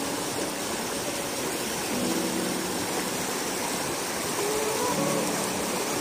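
Fast-flowing river pouring over rock ledges in white-water rapids: a steady, even rush of water. Faint music notes come and go over it.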